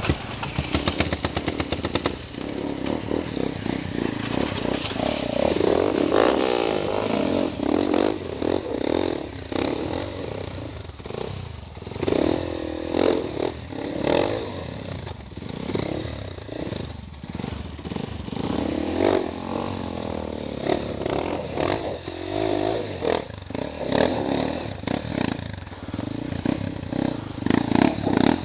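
Dirt bike engine revving up and falling back again and again as it is ridden along a rough trail, with knocks and clatter from the bike over the bumps.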